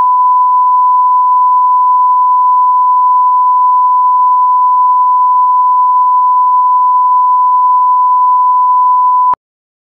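Loud, steady single-pitch line-up test tone, the reference tone played with colour bars at the head of a video master for setting audio levels. It cuts off abruptly near the end.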